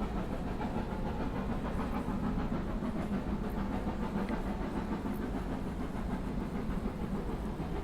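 Steam locomotive running: a steady, even noise of engine and steam with a light hiss, with no whistle.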